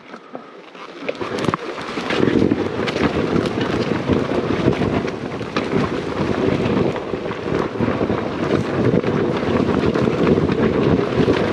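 Enduro dirt bike running as it rides down a rough forest trail, with wind on the microphone and frequent knocks from the bumpy ground. The sound starts low and builds up over the first two seconds.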